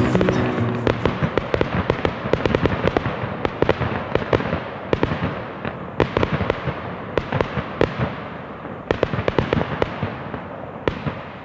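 Fireworks sound effect: dense, irregular crackling and popping that slowly thins and fades. A held musical chord dies away in the first second.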